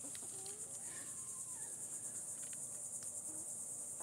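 Steady high-pitched insect chorus, with a few faint soft hen clucks in the first second.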